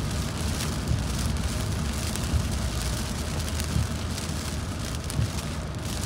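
A car driving in rain, heard from inside the cabin: a steady low road rumble under the hiss of tyres on wet pavement and rain on the car, with a few sharper taps.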